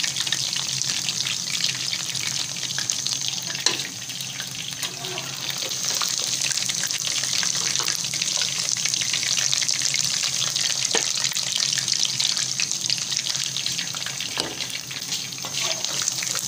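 Batter-coated chicken wings deep-frying in hot ghee, a steady dense crackling sizzle of bubbling fat. A few sharp clicks come from the metal slotted skimmer knocking the pot, once about four seconds in and twice more later.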